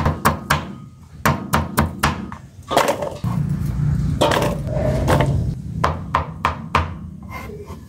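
Knife chopping produce on a cutting board in quick knocks. Midway, the cut pieces are scraped off the board into a stainless steel bowl, then the chopping starts again near the end.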